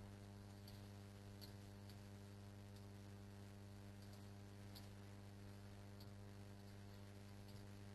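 Near silence: a low steady electrical hum, with a few faint clicks of typing on a computer keyboard.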